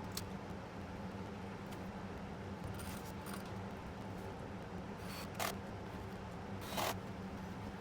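A few short clicks and rustles of handling, the loudest near the end, over a faint steady low hum.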